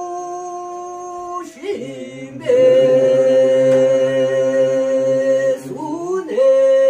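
Unaccompanied singing: long drawn-out held notes, each sliding up into its pitch. The loudest note is held for about three seconds in the middle, and a shorter one starts near the end.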